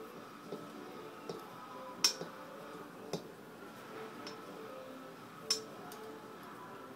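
Sparse metallic clicks and taps from a hand tool fastening a fuel rail onto an aluminium intake manifold, with three sharper clicks about two, three and five and a half seconds in.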